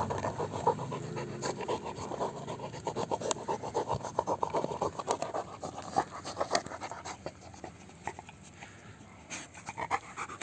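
A dog panting hard, with many short irregular clicks and scrapes through it. The panting eases after about seven seconds.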